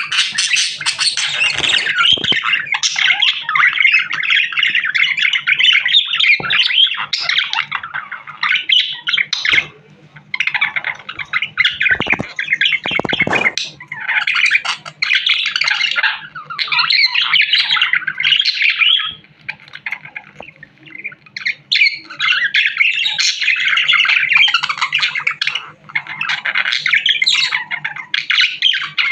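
Budgerigar chattering and warbling in long, excited runs of rapid chirps and squawks, broken by a few short pauses.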